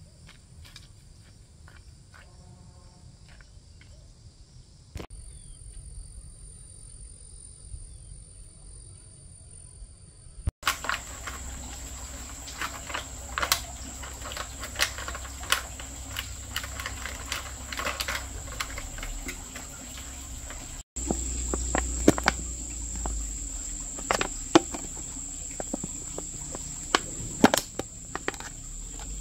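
Insects shrilling in a steady high tone, with scattered sharp clicks and knocks over it. The sound changes abruptly about 5, 10 and 21 seconds in, and is louder and busier after the second change.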